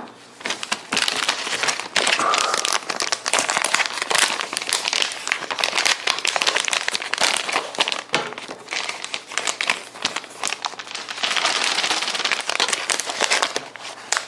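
Plastic packaging crinkling and crackling as it is handled and torn open to unwrap a computer part, in dense, irregular bursts throughout.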